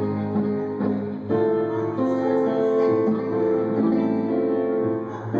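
Live music led by guitar: strummed at first, then held chords from about a second in.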